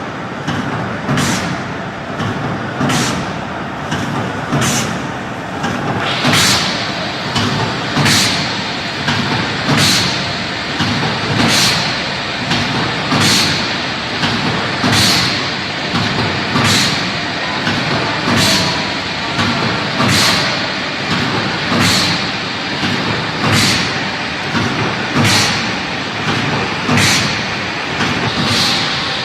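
Automatic fish and meat forming-and-frying production line running, a steady machine noise with a short hissing stroke about every 1.7 seconds as it cycles.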